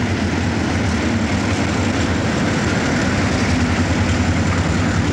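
Diesel locomotive engine running steadily with a low hum as the locomotive pulls a passenger train past at close range.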